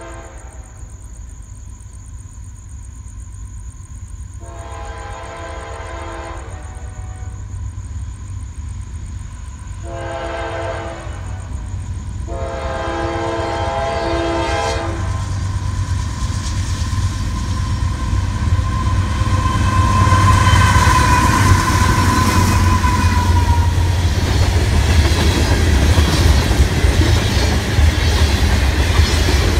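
Freight train approaching and passing. The locomotive's air horn sounds three blasts in the first half, the last two almost run together. Then the engine rumble swells as it draws level, and covered hopper cars roll by, growing steadily louder.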